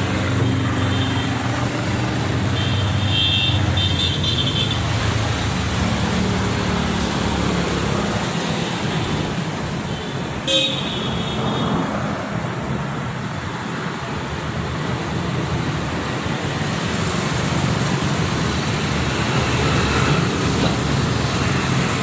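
Steady road traffic noise, with a couple of short horn toots in the first few seconds and a single sharp knock about ten seconds in.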